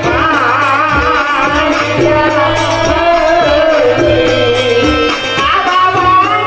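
A voice singing a wavering, ornamented devotional folk melody through a stage PA, over drum beats and a steady held-tone accompaniment.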